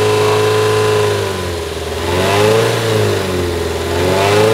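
2002 Toyota Corolla 1.6-litre four-cylinder engine held at raised revs, then dropping back and revved up twice, with a buzzing "Brrrr" rattle. The rattle comes from a loose air guide plate inside the intake manifold.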